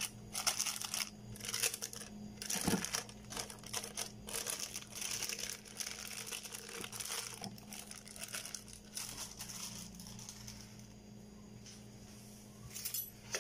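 Plastic wrapper crinkling and rustling as a block of cream cheese is squeezed out of it into a blender jar, in irregular crackly bursts that die down over the last few seconds. A faint steady low hum sits underneath.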